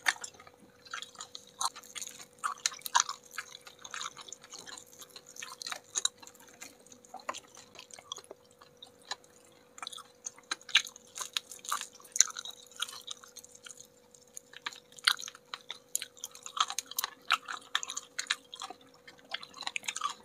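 Close-miked chewing of crispy battered fried chicken wings: irregular crunches and wet mouth clicks coming in clusters, with a faint steady hum underneath.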